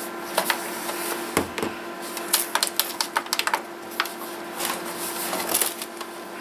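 Plastic casing of a portable radio CD player being handled and turned over in the hands: scattered sharp clicks and light knocks, with a duller knock about a second and a half in and a quick run of clicks a little after two seconds.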